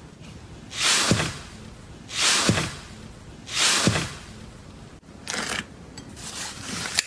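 Slime being squeezed and pressed by hand: three wet, hissing squelches about a second and a half apart, each ending in a quick falling pitch as trapped air is forced out. From about five seconds in, a run of small crackling clicks and pops follows.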